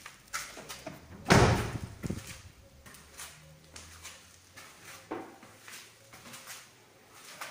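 A Mazda 6 car door slammed shut about a second in, with a short ring after it, followed by quieter, spaced footsteps on a concrete floor.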